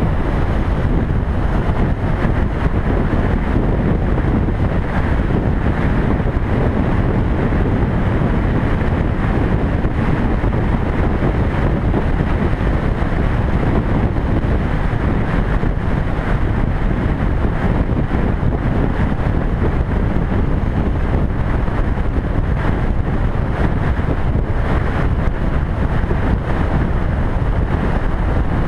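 Motorcycle riding at highway speed: steady rush of wind buffeting the microphone, with engine and road noise mixed in beneath it.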